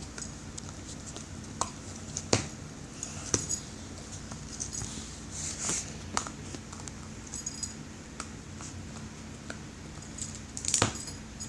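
Dog chewing and gnawing on a bone: irregular sharp cracks and crunches mixed with wet chewing sounds, a cluster of cracks near the end.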